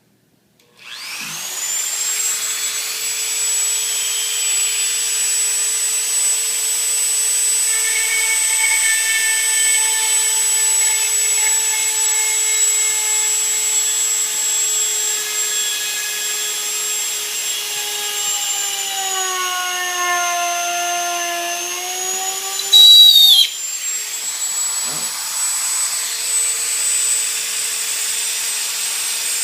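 Electric drill with a 1/8-inch bit drilling holes in a rocket airframe tube. The motor spins up to a steady whine and its pitch sags for a few seconds as the bit bites under load. About 23 seconds in there is a short, very loud burst, and then the drill runs on at steady speed.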